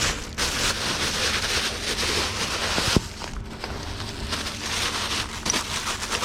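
Rustling and crinkling of packing paper and box contents being handled, with one sharp knock about three seconds in.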